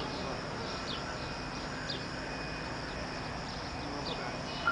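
Birds chirping: a few short, high, falling chirps over a steady outdoor background hum.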